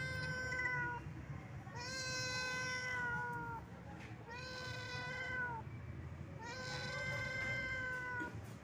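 Domestic cat meowing: a string of four long, drawn-out meows about a second apart, each held on a level pitch and falling slightly at the end.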